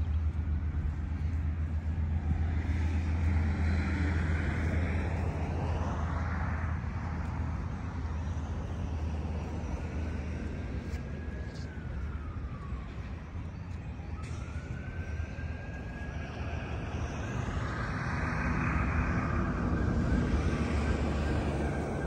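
Road traffic: vehicles pass, swelling and fading about three times, over a steady low rumble.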